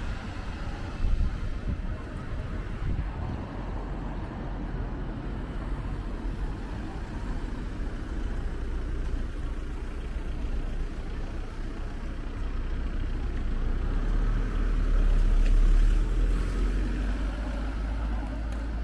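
Street ambience dominated by road traffic, a steady rumble that swells to its loudest about fifteen seconds in.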